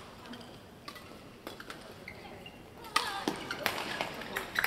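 Badminton hall ambience between rallies: a faint hiss with a few isolated sharp taps, then about three seconds in a quicker run of sharp taps and claps with faint voices.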